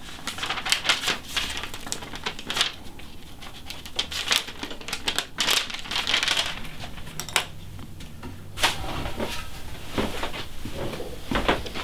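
Pencil scratching across a wooden board in short, irregular strokes as a line is drawn onto the wood. From about eight seconds in, a few knocks from a board being handled.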